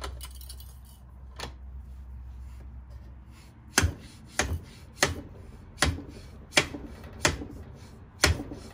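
A 43 mm slide-type fork seal driver being slammed repeatedly against a new oil seal, driving it into the fork's outer tube. There is a light click about a second and a half in, then seven sharp metallic knocks about 0.7 s apart starting about four seconds in.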